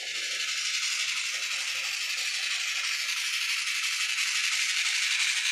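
Sound decoder in a DCC sound-equipped N-scale model steam locomotive playing a steady steam hiss through its small onboard speaker.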